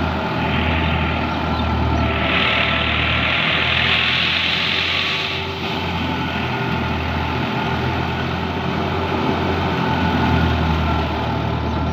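Heavy engine running steadily at a low, even speed. A rush of hissing noise rises over it about two seconds in and fades a few seconds later.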